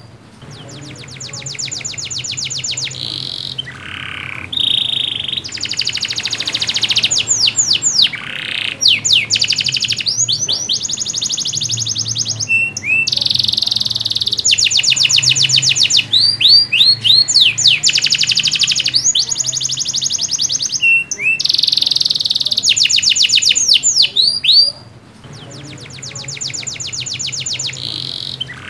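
Domestic canary singing a long, loud song of rapid trills and repeated sweeping notes, broken by short pauses every few seconds. This is the full, continuous song of a 'gacor' canary, the kind played to a silent canary to prompt it to sing.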